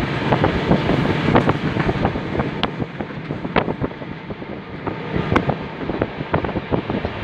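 Passenger train running along the line, heard from inside the carriage: a steady rumble of the wheels on the rails with a rush of wind over the microphone, full of rapid knocks and clicks, with a few sharper clicks standing out.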